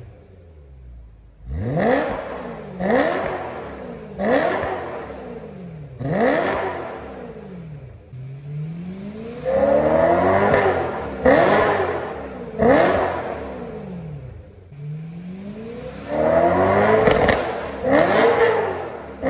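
BMW E90 M3's naturally aspirated 4.0-litre V8 being free-revved through an AME valved mid- and rear-section exhaust, the electronic valves half open and then in auto mode. A run of quick throttle blips, each rising and falling sharply in pitch, gives way in the second half to several longer, higher revs.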